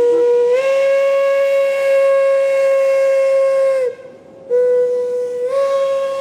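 Steam locomotive whistle sounding two long blasts on one note, its pitch stepping slightly higher partway into each blast, with a short break about four seconds in.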